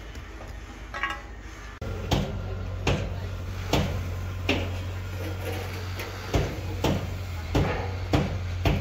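Steel rebar clinking: sharp metallic knocks at irregular intervals, about one every half second to a second, as bars of a column cage are handled and tied. A steady low hum runs underneath, and the first two seconds are quieter.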